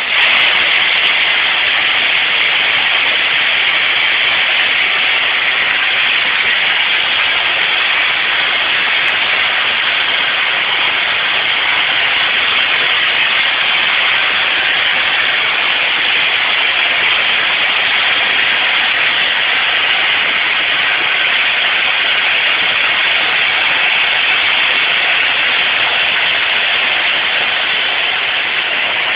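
Motoman welding robots' arcs hissing loudly and steadily. The sound starts abruptly as the arc strikes and cuts off sharply near the end as the welding stops.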